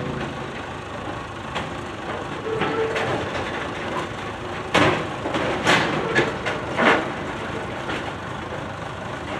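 Circus wagons towed by a small tractor along flatcars and down a steel loading ramp, their wheels and frames clanking and banging on the metal; a run of sharp knocks about halfway through, the loudest three about a second apart.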